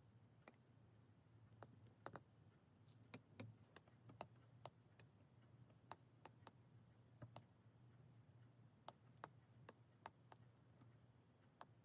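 Faint, irregular small clicks and taps, one to three a second, over a low steady hum in an otherwise near-silent room.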